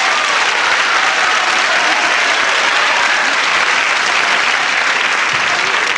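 Studio audience applauding steadily, with a few whoops near the start.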